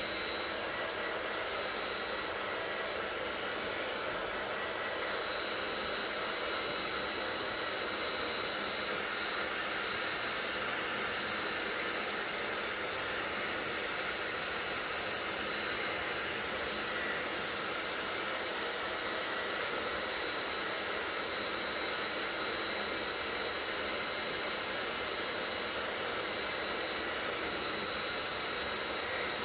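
Hair dryer running steadily: an even rush of blown air with a faint, steady high whine from its motor.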